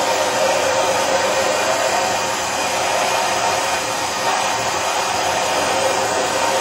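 Plumber's soldering torch burning steadily, heating the brass body of a shower valve to sweat-solder its joint.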